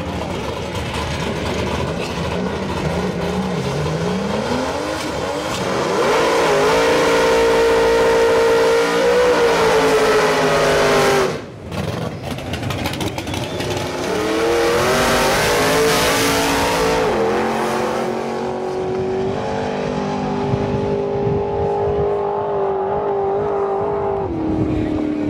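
Drag-race car's engine revved up and held at high revs through a burnout, the spinning tyres adding a loud hiss. It breaks off for a moment about halfway through, revs and holds high again, then runs steadily as the car pulls away, dropping in pitch near the end.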